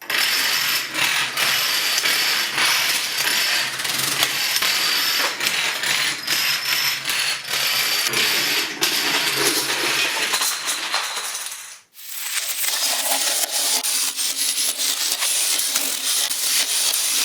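Dominoes toppling in a long chain: a fast, continuous clatter of small clicks that breaks off for a moment about two-thirds of the way through, then carries on.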